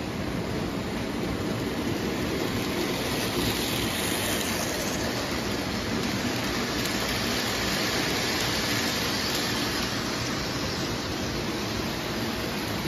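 O gauge model passenger trains running on three-rail tubular track: a steady rumble and whir of metal wheels and electric motors, growing louder through the middle as a train passes close, then easing.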